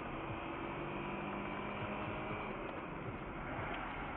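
Steady road and engine noise inside a moving car, as picked up by a dashcam, with a faint low engine hum running under it.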